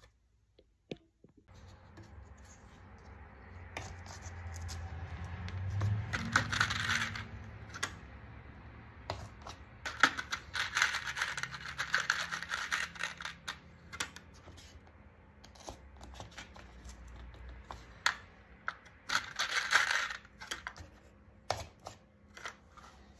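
A utility knife blade scraped in strokes across a diamond sharpening plate, then clear push pins rattling and clicking inside a small plastic box as the box is handled, in bursts with scattered sharp ticks between.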